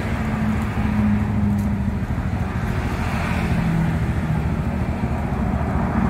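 Steady rumble of motor vehicle engines and road traffic, with a faint engine hum that shifts slightly lower in pitch about halfway through.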